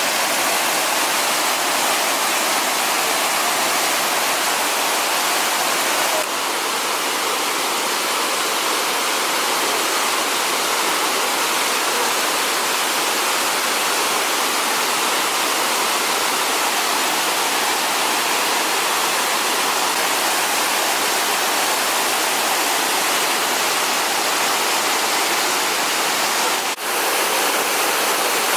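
Steady rush of falling water from the Kuang Si Falls cascades, with a slight change in tone about six seconds in and a brief dip near the end.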